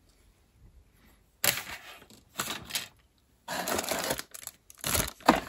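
Plastic model-kit parts being handled: after a quiet second or so, a few short clicks and rustles as a plastic parts tree is set down and the bagged chrome parts tree is lifted out of the cardboard box, its clear plastic bag crinkling.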